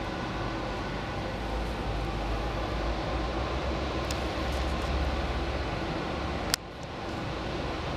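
Steady background noise of a large workshop: a low hum under an even hiss, broken by one sharp click about six and a half seconds in, after which the noise dips briefly.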